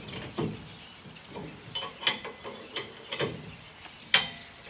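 Metal parts of a hitch-mounted truck bed extender knocking and clinking together as it is assembled by hand: a series of light knocks and clicks, with one sharper clank about four seconds in.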